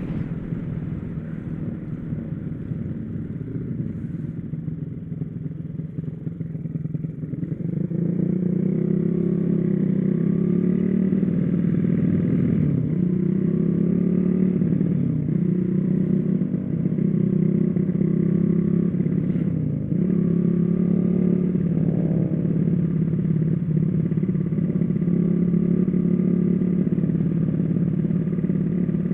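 Small motorcycle engine running under way. It is lighter for the first several seconds, then pulls harder from about eight seconds in and holds a steady drone. The pitch dips briefly a few times.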